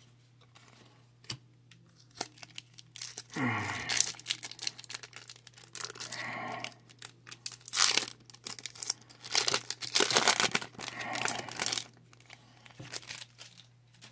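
Foil Pokémon booster pack being torn open and its wrapper crinkled, in irregular rustling bursts that are loudest through the middle seconds.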